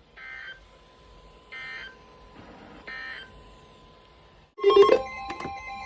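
Emergency Alert System end-of-message signal: three short bursts of screechy digital data tones about 1.3 s apart, marking the end of the alert. About four and a half seconds in, music starts with a loud struck note.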